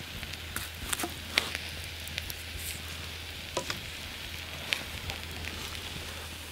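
Campfire coals crackling: a steady hiss with scattered sharp pops, the loudest about a second and a half in.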